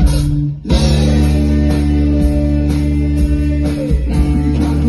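Live rock band playing, electric guitars and drums. The band breaks off for a fraction of a second about half a second in, then crashes back in on long held notes.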